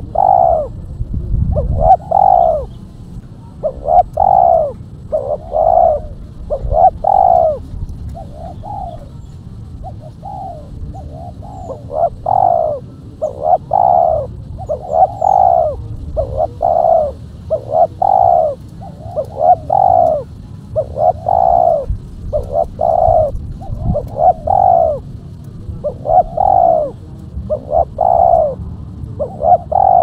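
Spotted dove cooing over and over in short repeated phrases, each coo a rising-and-falling note. It is the tekukur call used as a lure to draw other doves and to get quiet caged birds calling.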